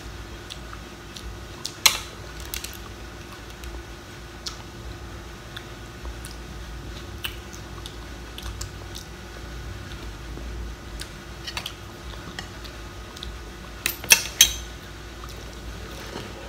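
Eating crab claws: scattered sharp clicks and clacks of hard shell against a plate, with a louder cluster of cracks near the end.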